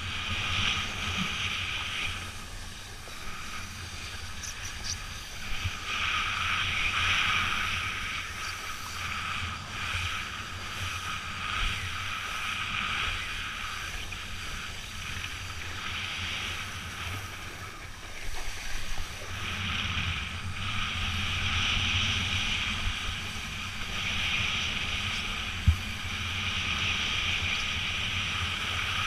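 Wind rushing over the microphone and water noise out on the water during kiteboarding, a steady hiss and rumble that swells and fades every few seconds.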